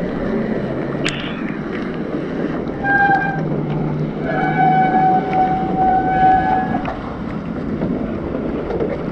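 Bicycle brakes squealing twice, a short squeal and then a longer one of about two and a half seconds that slides up slightly at its start, over a steady rush of wind and road noise.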